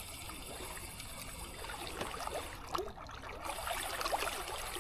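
Small waves lapping and trickling against the rocky shoreline, with faint clicks and a whir from a spinning reel being slowly wound in.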